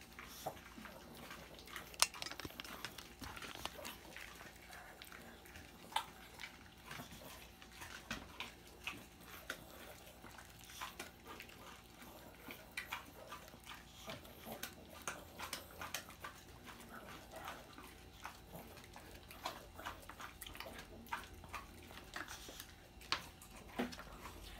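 A small dog chewing a treat: faint, irregular crunches and clicks.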